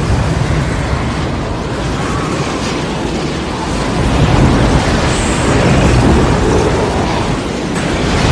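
Tornado wind sound effect: a dense, steady rush of wind noise, heaviest in the low end, swelling a little about halfway through and easing briefly near the end.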